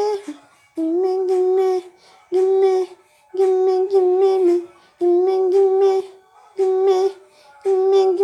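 A girl singing unaccompanied, repeating a short sung phrase about six times. Each phrase lasts about a second and stays mostly on one note, with short silent gaps between them.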